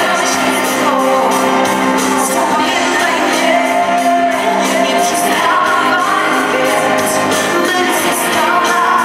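Female pop singer singing live with her band, a melody over sustained backing and a steady drum beat, heard through a large hall's sound system.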